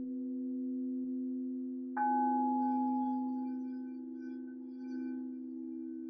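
Crystal singing bowls ringing in steady, overlapping tones. About two seconds in, a bowl is struck, adding a brighter, higher ring that slowly fades.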